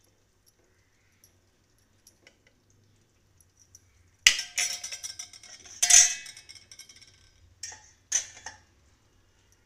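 Steel kitchen utensils clattering: a metal spoon knocking and scraping in a steel kadai of curry, with sharp ringing clinks about four seconds in and a louder one near six seconds, then a few smaller clatters near the end.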